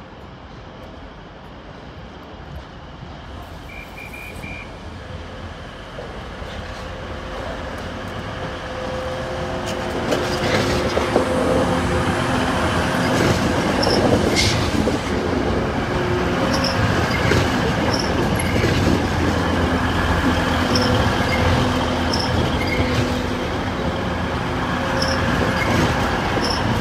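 A train approaching and passing through the station: its running noise grows steadily louder over about ten seconds, then stays loud with steady pitched tones from the drive and regular sharp ticks from the wheels on the track.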